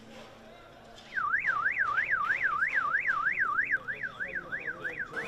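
Electronic siren wailing in a fast up-and-down yelp, about three sweeps a second, starting about a second in and getting quieter near the end.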